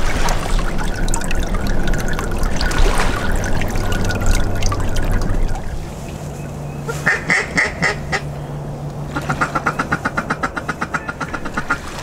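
A duck call being blown hard in quacking series: first a short group of about four quacks, then a fast run of about fifteen quacks. Before the calling, water sloshing as the hunters and dog move in the flooded timber.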